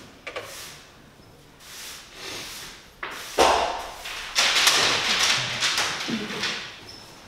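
Onstage action noise: a sudden thud about three and a half seconds in, then a few seconds of loud scuffling and rustling noise.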